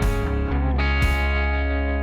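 Background music: distorted electric guitar over a heavy, steady bass.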